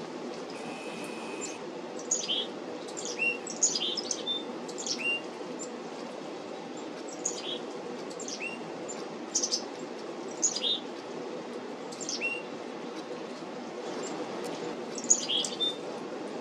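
Black-capped chickadees calling: clusters of short, high notes that slide down in pitch, some ending in a brief hooked lower note, coming in scattered bunches over a steady low background hum.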